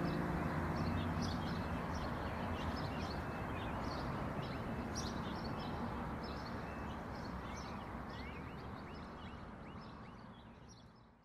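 Small birds chirping many times over a steady rushing background noise, the whole slowly fading out to silence near the end. The tail of a song's music fades away at the very start.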